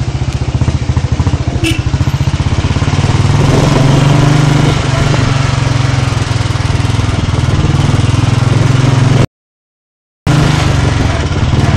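Motorcycle engine running steadily as the bike rides along, a rapid low pulsing that swells slightly a few seconds in. The sound cuts out completely for about a second near the end.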